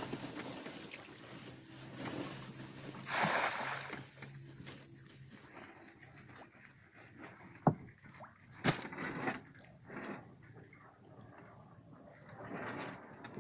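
Night-time insect chorus, crickets trilling steadily on several high pitches. A short rustling, scuffing burst comes about three seconds in, and two sharp knocks come near the middle.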